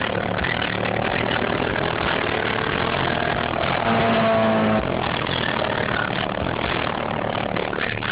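Honda B16 DOHC VTEC inline-four running steadily near idle, with a front exhaust leak. About four seconds in, a louder steady tone holds for under a second.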